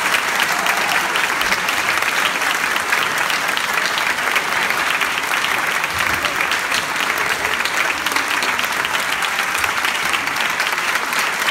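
An audience applauding steadily, a dense patter of many hands clapping in a hall.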